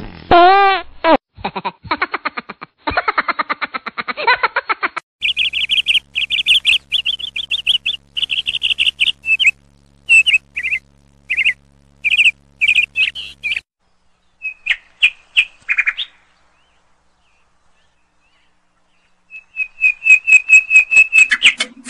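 Bird-chirp sound effect: rapid high chirps and whistles in loud bursts, stopping dead for about three seconds before a last quick run near the end. It opens with a warbling swoop and a fast rattling tick.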